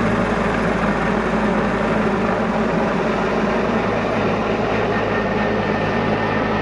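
Firefighting helicopter running nearby, a steady, loud drone of engine and rotor.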